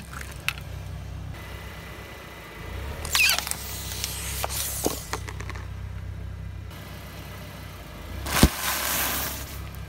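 Car engine idling low while its tyre rolls over and crushes plastic objects, giving a run of crunches and cracks about three to five seconds in. Near the end a sealed snack bag bursts under the tyre with one loud pop and a rush of air.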